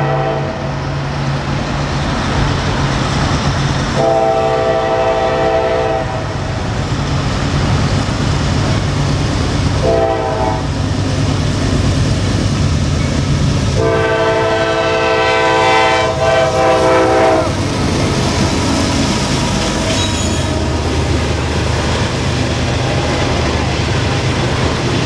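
Norfolk Southern diesel locomotive sounding its multi-note air horn in the grade-crossing warning pattern: the tail of a long blast at the start, another long blast about four seconds in, a short one about ten seconds in, and a final long blast from about fourteen to seventeen seconds. Under the horn the locomotives' engines rumble steadily as the train comes close. In the last few seconds loaded coal hopper cars roll past with the clatter of wheels on rail.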